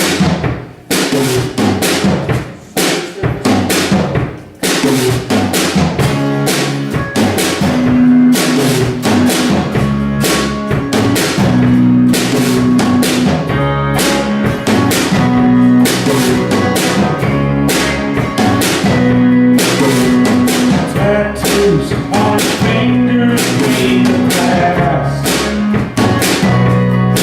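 A rock band playing live in rehearsal: a drum kit plays alone for the first few seconds, then the rest of the band comes in about four and a half seconds in and plays on with a steady beat.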